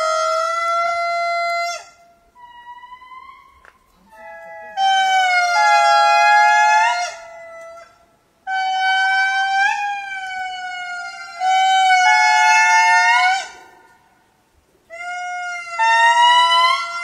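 Lemurs calling: a series of long, drawn-out pitched calls, each held steady and rising in pitch at its end, with two or more voices overlapping. The calls come in bouts of a few seconds, broken by short lulls about two, eight and fourteen seconds in.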